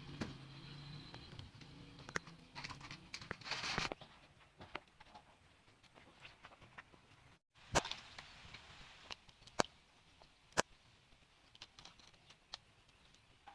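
Handling noises: scattered clicks and knocks, with a short rustling scrape a few seconds in, then a few loud sharp taps in the second half.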